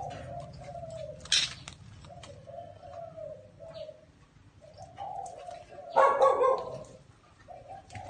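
Spotted dove cooing, repeating a short phrase of low notes several times. A sharp click comes a little over a second in, and a brief, loud rough noise about six seconds in.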